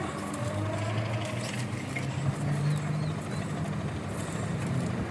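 A petrol line trimmer (whipper snipper) engine running steadily, its pitch shifting slightly up and down.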